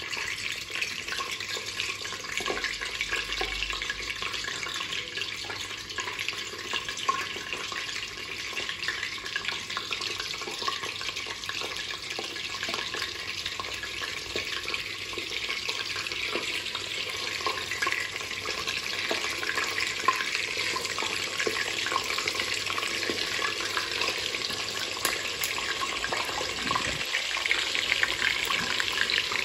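Chicken frying in hot oil in a stainless steel pot: a steady sizzle dense with fine crackles.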